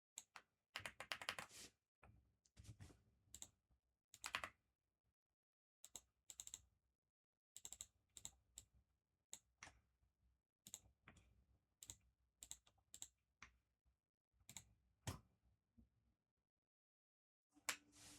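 Typing on a computer keyboard: short irregular runs of key clicks with brief pauses between them.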